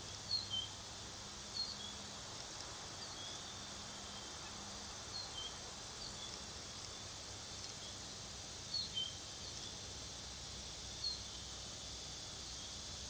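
Short high bird chirps, mostly in quick pairs, every one to three seconds, over a steady high-pitched insect chorus.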